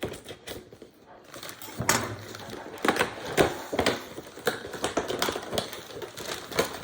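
Action-figure packaging being opened by hand: a run of irregular clicks, crinkles and scrapes of cardboard and plastic tray that starts about two seconds in.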